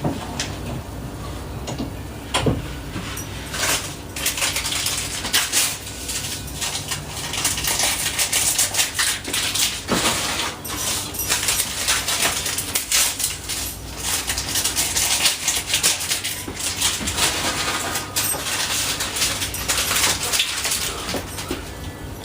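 Dishes, pots and cooking utensils clinking and clattering in repeated short knocks, with scraping between them.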